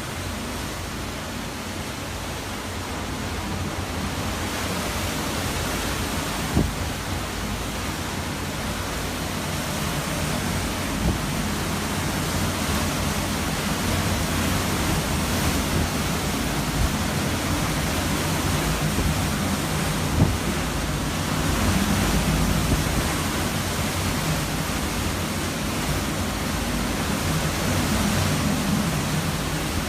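Hurricane wind and rain, a steady rushing noise that swells and eases a little, with a few short knocks along the way.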